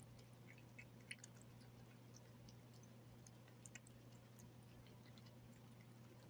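A cat chewing and licking soft fish, heard as faint scattered wet clicks over a low steady hum.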